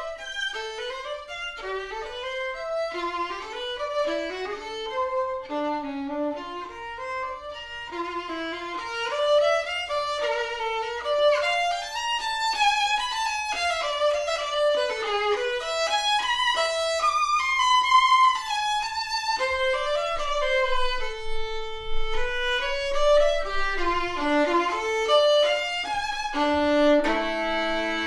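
Violin music: a quick, winding melody of many short notes, ending in a few notes held together as a chord.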